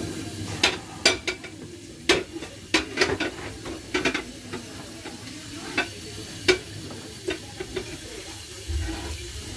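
Aerosol spray can knocking and clinking against a metal saucepan of water, with the water sloshing: about a dozen irregular sharp taps, fewer near the end.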